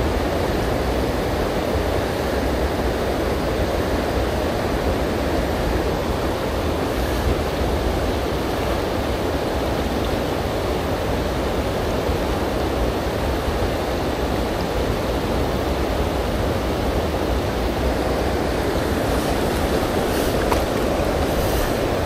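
Steady rush of a shallow, stony river flowing over rocks, an even, unbroken hiss of running water.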